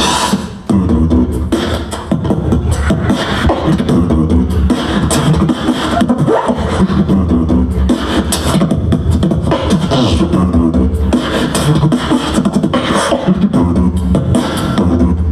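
Live human beatboxing through a microphone: a steady, fast beat of deep kick-drum bass hits with snare and hi-hat clicks, settling into its groove a little under a second in.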